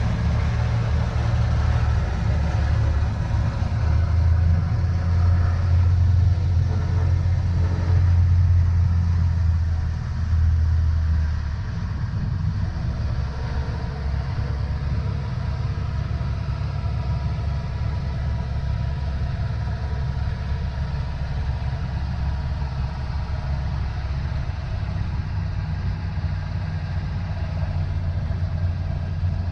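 Cessna 152's four-cylinder Lycoming O-235 engine and propeller running at power, a steady low drone heard from outside the cabin on the wing. The deep hum eases and the level drops slightly about ten seconds in, then holds steady.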